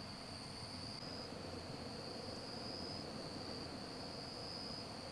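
Insects trilling steadily at night: one faint, continuous high-pitched song with a fainter overtone above it.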